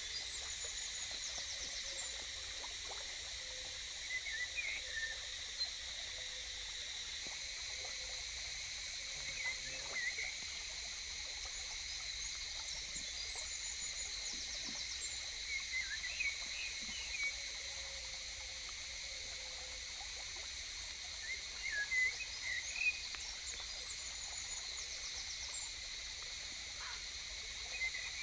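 Forest ambience: a steady high-pitched insect drone, with short chirping calls scattered through it.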